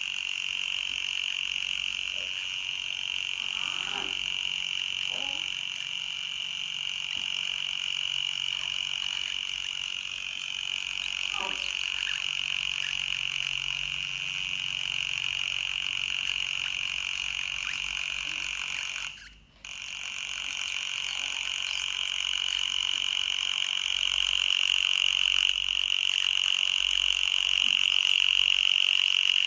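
Steady high-pitched electronic tone, with a fainter higher tone above it, played from a smartphone speaker as an anti-mosquito sound. It cuts out for a moment about two-thirds of the way through, then returns louder.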